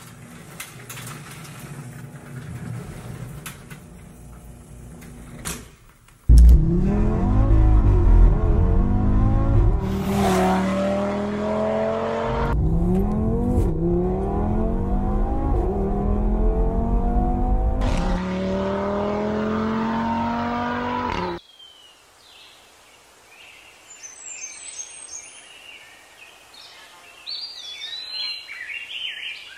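Car engine accelerating hard through several gears, its pitch climbing and dropping back at each upshift, loud for about fifteen seconds before cutting off suddenly. Birds chirp faintly afterwards.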